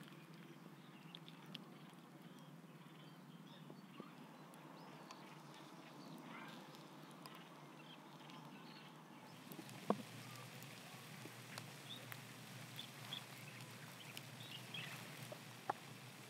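Faint outdoor background with scattered short bird chirps; in the second half, a few sharp crackles from the embers of a wood campfire, one louder about ten seconds in.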